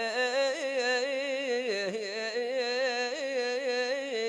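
A single voice singing a Ramadan nasheed unaccompanied, drawing out long wavering notes with ornamented melismatic turns.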